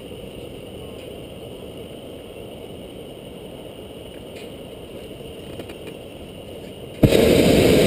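Faint, steady background hiss, then a hot air balloon's propane burner fires suddenly about seven seconds in, much louder.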